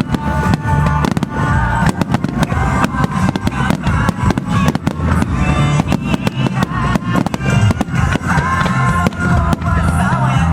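Fireworks bursting and crackling in quick succession over loud music with a pulsing bass line.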